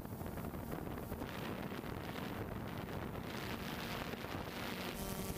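Wind rushing and buffeting the microphone, a steady noise. Near the end a steady hum with several pitches comes in under it.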